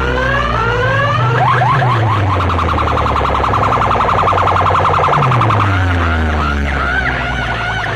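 Electronic siren and alarm effects played very loud through competition sound-box loudspeakers: repeated rising sweeps, a fast warbling tone in the middle that breaks into wobbling tones near the end, over deep bass tones that slide downward again and again.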